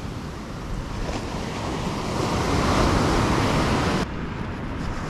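Ocean surf, with a wave swelling and breaking and wind on the microphone. The sound drops suddenly to a quieter wash about four seconds in.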